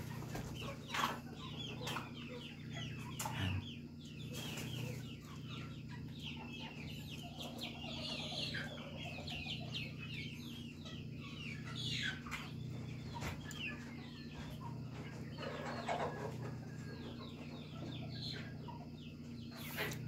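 Chickens clucking, a continuous chatter of many short calls, with a few sharp knocks now and then.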